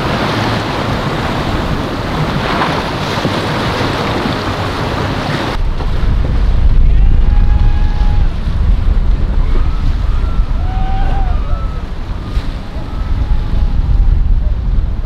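Rough surf and rushing water in a strong, even wash of noise. About five and a half seconds in it changes abruptly to heavy wind buffeting the microphone, with faint short calls over it.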